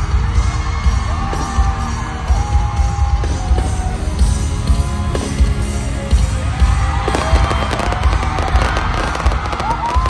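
Loud live pop concert music over stadium speakers, with a heavy bass beat and sung notes. Fireworks pop and crackle overhead, thickening from about seven seconds in.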